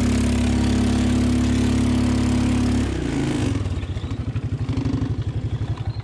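ATV engine held at high, steady revs, then dropping to a lumpy, pulsing idle about three seconds in. The quad is straining in mud while its clutch overheats, which the riders notice as a hot-clutch smell.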